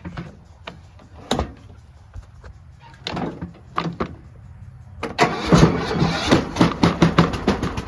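Riding lawnmower's engine being started with its electric starter, freshly serviced with a new battery, fuel filter and air filter. It catches suddenly about five seconds in and keeps running.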